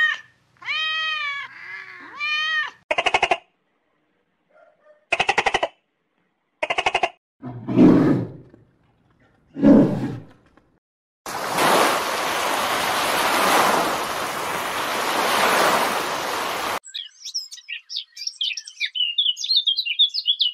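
A string of different animal calls, each cut off sharply before the next. First come a few arching, whining calls. Then short buzzing rattles, two low deep calls, a breathy noise lasting about five seconds, and rapid high chirps near the end.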